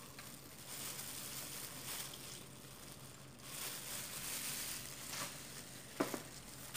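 Faint crinkling of loose plastic food-prep gloves as a lemon half is squeezed by hand over a small bowl, with a soft knock about six seconds in.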